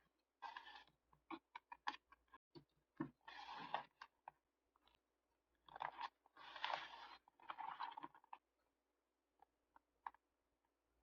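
Paper being handled in diary decorating: several short rustling swishes of paper mixed with light taps and clicks, thinning out to a few faint ticks after about eight seconds.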